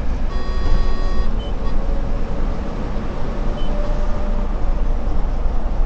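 Solaris Urbino 18 IV articulated city bus driving at steady speed, heard from the driver's cab as a continuous engine and road rumble. An electronic beep lasting about a second sounds just after the start, and two short high blips come later.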